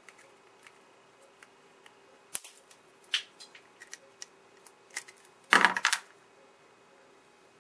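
Pliers gripping and tugging at a bumblebee capacitor's hard plastic casing and its paper-foil winding: scattered small clicks and scrapes, with a louder half-second rattle of clicks about five and a half seconds in.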